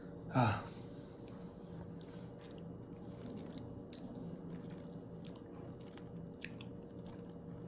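A person chewing a mouthful of instant noodles, with faint scattered wet mouth clicks and smacks. There is one short louder sound about half a second in, and a steady low hum underneath.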